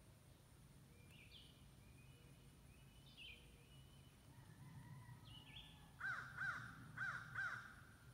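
Birds calling: short high chirps and whistles from about a second in, then four louder arched calls in two quick pairs near the end. A faint low rumble runs underneath.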